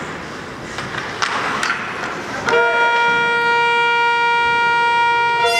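Ice rink's period-end horn sounding one long steady blast about halfway through, signalling the end of the first period. Before it, rink noise with a few sharp clicks from play on the ice.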